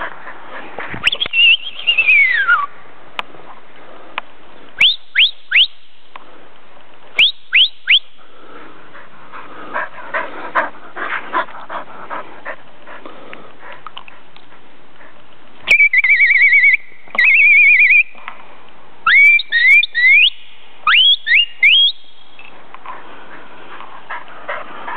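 Australian shepherd whining: short high-pitched rising squeals in quick runs of three, a longer wavering whine about two thirds of the way in, with rustling between them.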